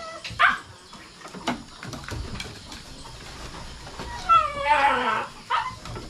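A dog whimpering: a short yip about half a second in, then a longer whine that falls in pitch near the end.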